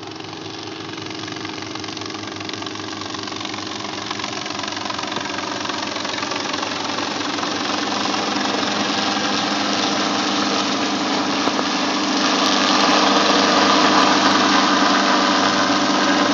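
Small helicopter flying in low, its engine and rotor noise growing steadily louder as it approaches and passes close overhead.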